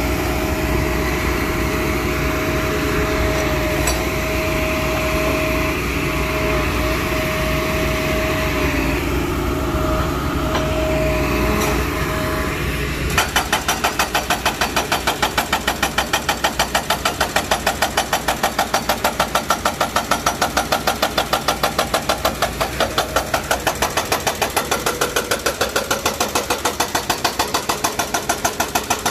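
Hitachi hydraulic excavator's engine running with a thin steady whine. About 13 seconds in, its hydraulic breaker starts hammering the reinforced-concrete tower crane foundation in a fast, even stream of blows.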